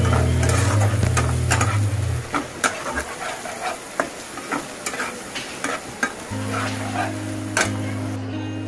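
Chopped onions sizzling in hot oil in a nonstick kadai, stirred with a steel spatula that clicks and scrapes against the pan one to two times a second. Low background music notes fade out about two seconds in and come back near the end.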